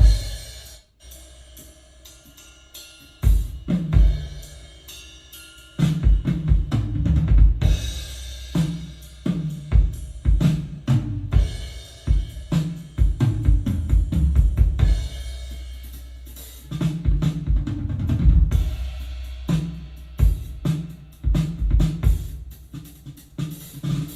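Drum-heavy music with kick drum, snare and cymbals, played back through a Yamaha YSP-2700 sound projector as a sound test. It drops to a sparse, quieter passage about a second in, returns with single hits around three to four seconds, and carries a full steady beat from about six seconds on.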